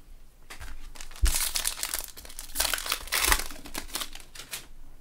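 Foil wrapper of a trading-card pack being torn open and crinkled by gloved hands, a run of crackling rustles that is loudest in the middle.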